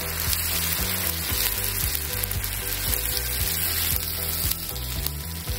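Ragi dosa batter sizzling on a hot tawa as a steel ladle spreads it outward in circles, the ladle rubbing across the batter and pan.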